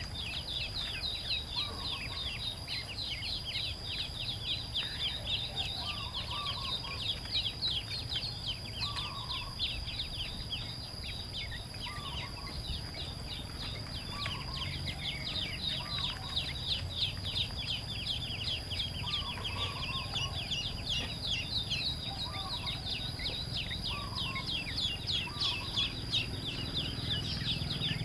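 Many newly hatched ducklings peeping nonstop, short falling peeps overlapping one another. A lower, softer call comes about every two seconds, and a steady high whine runs behind.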